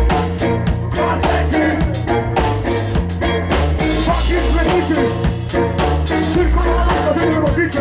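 Punk band playing live: electric guitar, bass and drum kit in a steady beat, with a singer shouting into the microphone.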